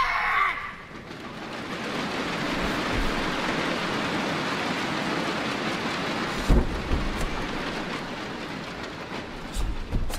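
A karateka's kiai shout at the very start, then steady crowd applause that builds over the first couple of seconds and carries on, with sudden low thumps of the performer's movements about six and a half seconds in and near the end.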